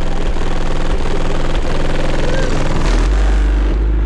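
Bass-heavy music played loud through a car audio system with six Resilient Sounds Platinum 15-inch subwoofers, a deep bass note underlying the beat and growing stronger about three seconds in.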